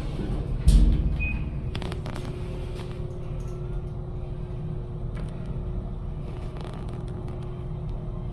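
Hitachi elevator in operation: a heavy low thump about a second in, a short high beep, a few clicks, then a steady hum as the car travels.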